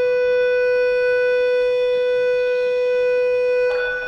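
A loud, long beep held at one unchanging pitch that cuts off sharply near the end.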